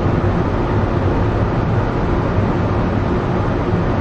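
Driverless rubber-tyred, cable-hauled airport people-mover train running along its guideway, heard from inside the car: a steady rumble with a faint low hum.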